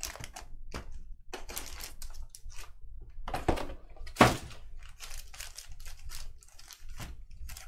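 Trading-card pack wrapper crinkling and tearing as a pack is ripped open and the cards are handled, in irregular rustles with a sharp tap about four seconds in.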